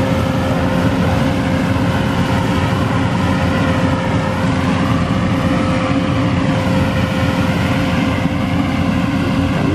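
Yanmar 850 rice combine harvester running steadily as it cuts, a loud, even engine drone with a steady tone held over it.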